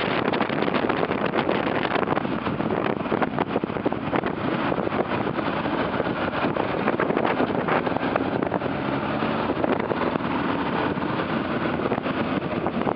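Motorcycle on the move: a steady rush of wind noise on the microphone over the engine running at an even pace.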